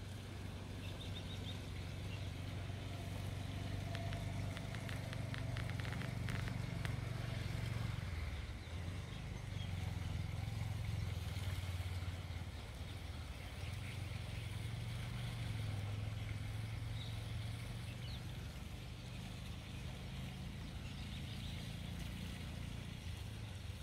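Low steady engine hum that swells and eases a few times, with a short run of faint ticks around five to seven seconds in.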